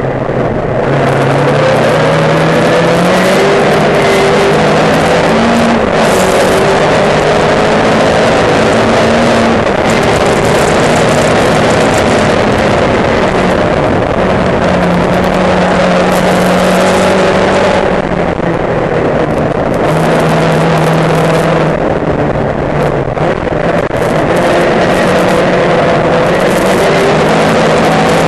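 Thunder Saloons race car's engine at racing speed, heard from the onboard camera: loud and steady, its note climbing and falling back again and again as the car goes through the gears, easing off briefly twice past halfway.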